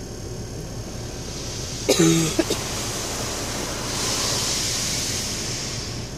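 Car wash water spray hissing against the car, heard from inside the cabin, swelling and then fading about four to five seconds in. About two seconds in, a short sharp sound, followed by a smaller one, stands out over the wash.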